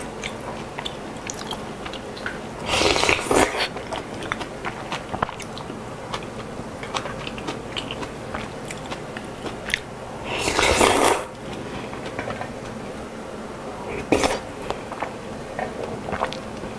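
Close-miked eating of chicken kalguksu: noodles slurped in two loud bursts of about a second each, about three seconds in and again about ten seconds in, and a shorter one near the end. In between come chewing and small clicks of wooden chopsticks against the pan.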